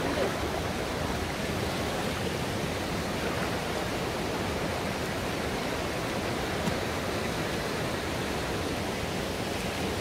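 Steady rush of a shallow mountain stream running over rocks.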